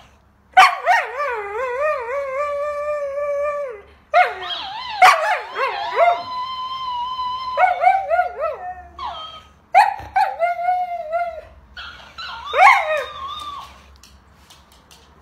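Siberian husky 'talking': a string of wavering, drawn-out howls broken by short yips, some calls held steady for a second or more, in about five bouts before it falls quiet near the end.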